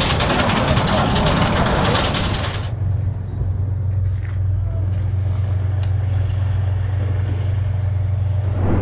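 An armoured vehicle's engine running loud, with men's voices over it. After a cut, about two and a half seconds in, a steady low engine drone goes on, with a couple of faint clicks.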